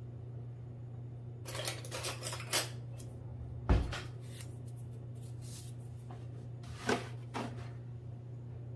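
Measuring spoons clicking and rattling as they are handled, with one dull thump about halfway through, over a low steady hum.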